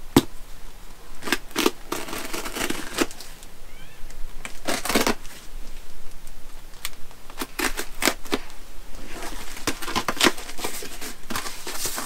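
Utility knife scraping and slicing through packing tape on a cardboard box: a run of short irregular scrapes and ticks with a few longer rasps, then cardboard flaps rustling as the box is pulled open near the end.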